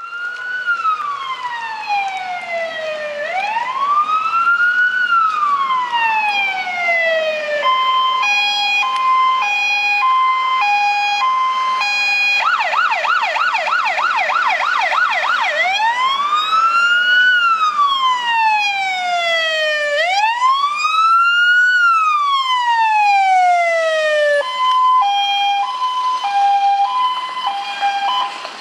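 Fire engine's electronic siren running through its tones. A slow rising-and-falling wail comes first, then a two-tone high-low, then a fast yelp of about four sweeps a second, then the wail again, and the high-low once more near the end.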